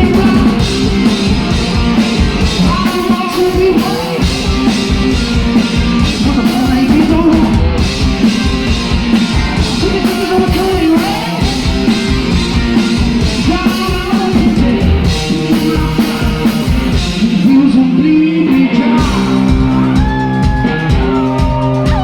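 Live rock music from a blues-rock duo: drums pounding under guitar and a sung, shouted lead vocal, heard through an audience recording in the venue.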